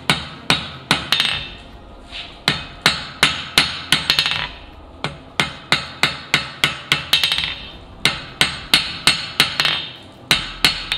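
Blacksmith's hand hammer striking a red-hot mild steel bar on an anvil, in quick runs of about four ringing blows a second separated by short pauses. The blows come straight down on the bar's corners to knock them off, working the square end toward round.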